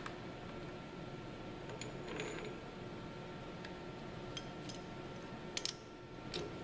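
Scattered light metallic clicks and clinks from steel parts handled at a lathe's three-jaw chuck: a flat steel bar is set against the jaws and the chuck wrench is fitted into its socket. The sharpest pair of clinks comes near the end, over a faint steady hum.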